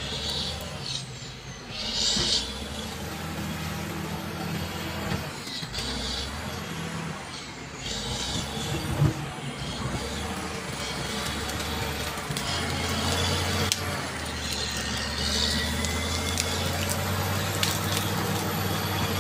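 Caterpillar D7G bulldozer's six-cylinder diesel engine running under work, with short high-pitched bursts now and then; the engine gets louder about two-thirds of the way through.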